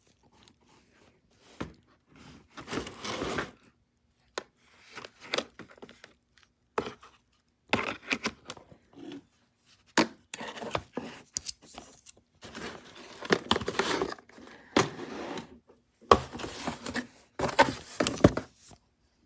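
Hand-handling clicks, knocks and short scrapes of hard parts as the rotary tool's flex-shaft keyless chuck is worked by hand. The chuck is faulty and will not tighten enough to hold the bit, popping when it is turned. The rotary tool's motor is not running.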